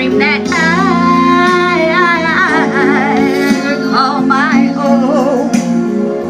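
A woman singing into a microphone through the stage speakers, her held notes wavering in vibrato, over instrumental accompaniment.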